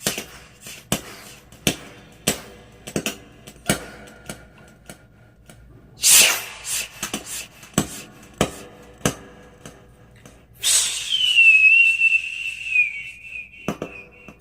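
A man imitating a Diwali sky rocket firecracker with his mouth: a string of sharp pops and crackles with a hissing burst about six seconds in. Near the end a hiss turns into a long, slightly falling whistle of about three seconds that cuts off suddenly.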